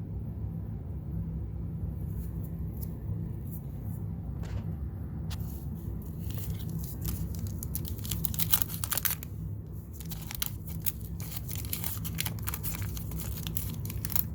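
Waxed-paper wrapper of a 1987 Garbage Pail Kids pack being torn open and crinkled by hand. There are a few light rustles at first, then a busy run of crackly rips and crinkles from about five seconds in, over a steady low hum.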